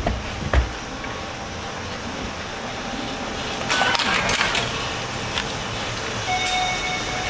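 Steady background noise with a few knocks and a crackly rustle midway, then short electronic beeps near the end.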